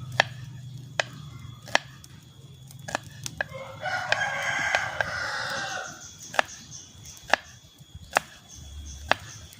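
A rooster crowing once, a call of about two seconds starting about four seconds in, over sharp knife strokes on a cutting board roughly once a second as the garlic, shallots and chilies are sliced.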